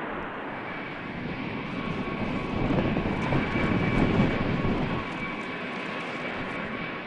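Antonov An-124's four turbofan engines running as the freighter moves along the runway: a steady jet rumble with a thin high whine. It swells louder between about two and five seconds in, then eases back.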